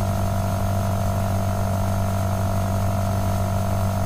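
Steady electrical hum and buzz, mains hum picked up by the recording, over a faint hiss.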